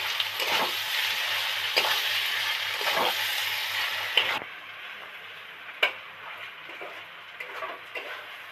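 Onion-tomato masala with fried potatoes sizzling in oil in a metal kadai while a metal spatula stirs and scrapes it, about one stroke a second; the oil has separated from the onions and tomatoes. About four seconds in the sizzle drops away abruptly, leaving quieter stirring and one sharp click.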